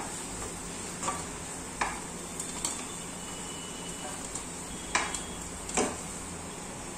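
Oil sizzling steadily in a kadai as fried besan barfi (gram-flour cake) pieces are lifted out with a spatula, with about half a dozen sharp knocks and clinks of the spatula in the pan and of pieces set down on a steel plate.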